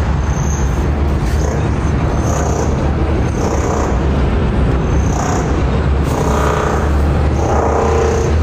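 Steady loud low rumble of outdoor background noise, traffic-like, picked up on a phone's microphone while the phone is carried and handled.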